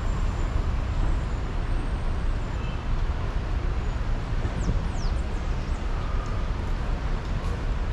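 Steady road traffic noise, a continuous rumble of passing cars and buses with no single vehicle standing out.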